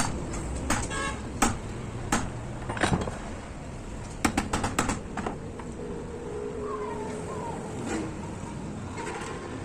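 Sharp clicks and light metallic knocks from the parts of an angle grinder being handled during disassembly: a few separate ones, then a quick run of them about four to five seconds in, over a steady low background rumble.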